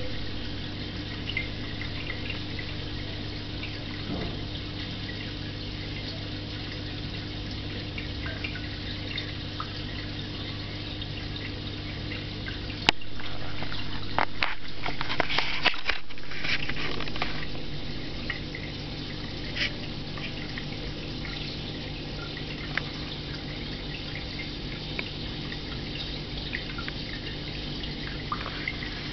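Aquarium filter running: a steady trickle of water over a constant low hum. One sharp click comes a little before halfway, and a louder stretch of splashy noise follows for a few seconds.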